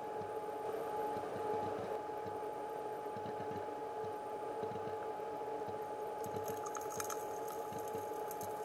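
Underwater sound of creek water flowing over a gravel bed, with irregular low gurgles and a steady hum. Between about six and seven seconds in there is a brief crackle of gravel stones clicking together as a spawning chinook salmon digs at the streambed, stirring up silt.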